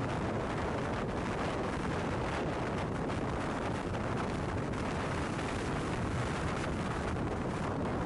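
Strong wind rushing over the microphone in a steady, dense roar.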